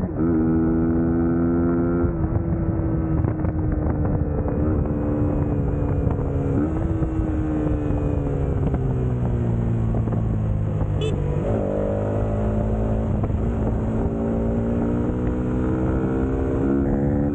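Suzuki GSX-S150's single-cylinder four-stroke engine running under way, its pitch sinking slowly as the bike slows, then jumping up sharply about eleven seconds in and again near the end.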